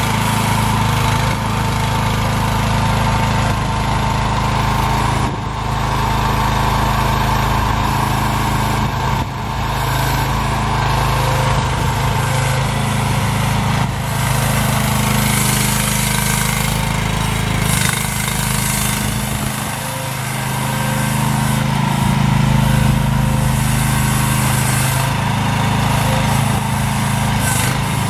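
AGT H13R mini excavator's engine running steadily while the boom, arm and bucket are worked hydraulically, its note shifting slightly as the load changes.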